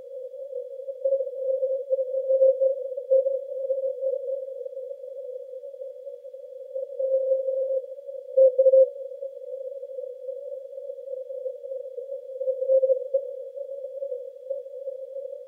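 Morse code on the 80 m amateur band heard through a Yaesu FTdx10 receiver's narrow CW filter: a single keyed tone of about 550 Hz, coming and going over band hiss confined to the same narrow pitch.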